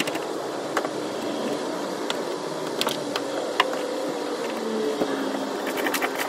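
Ratchet straps being tightened around a pallet of bottled water in a cargo van: scattered sharp clicks, then a quick run of clicks near the end, over a steady hum.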